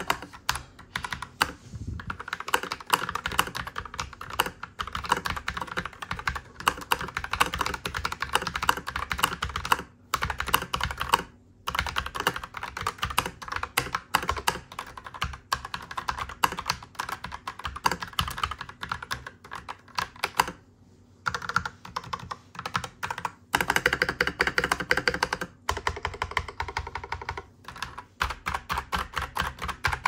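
Akko 5087B Plus mechanical keyboard with its stock, unmodified switches being typed on continuously: a rapid stream of keystroke clacks, broken by a few short pauses.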